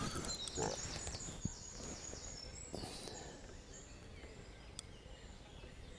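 Faint outdoor ambience with small birds singing at dawn: short, high chirps and trills, busiest in the first second or so, then sparser.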